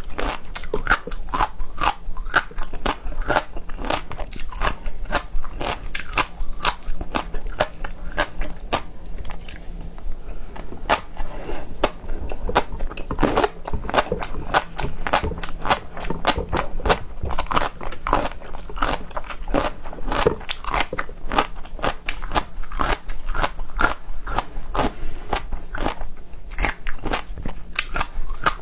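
Close-miked chewing and biting of seafood: a dense, continuous run of crisp crunches and crackles, thinning briefly about ten seconds in.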